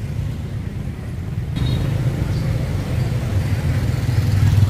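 Steady low rumble of street traffic, growing a little fuller and louder after about a second and a half.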